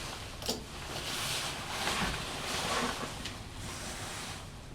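A hand tool working a power cable in repeated scraping strokes, about one a second, with a sharp click about half a second in.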